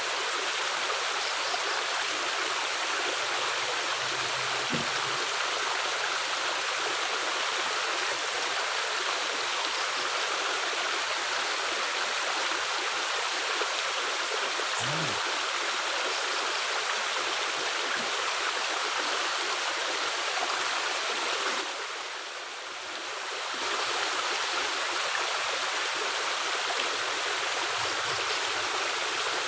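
Water rushing steadily through a culvert, a constant even hiss that drops away briefly about three quarters of the way through.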